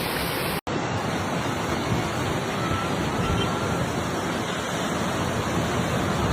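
Steady rushing roar of fast-moving floodwater. It cuts out for an instant about half a second in.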